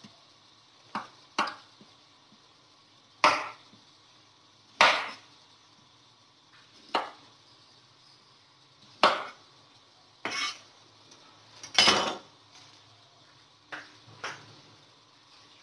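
Kitchen knife slicing through fresh ginger and knocking on a wooden cutting board: single sharp knocks every second or two, at an uneven pace.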